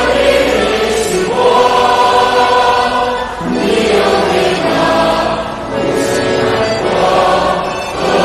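Choral music: a choir singing long held notes, the chord changing every second or two.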